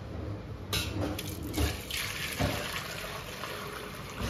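Pale cooking liquid poured steadily from a container through a fine-mesh sieve into a stainless-steel pot, splashing, with a couple of brief knocks along the way.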